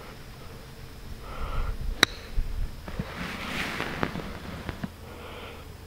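Golf club striking a golf ball on a short chip shot: one crisp click about two seconds in. It is followed by about a second of breath-like rushing noise.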